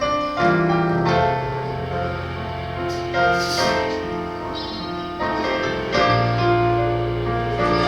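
Piano playing slow gospel music: sustained chords over long low bass notes, with new chords entering about every second.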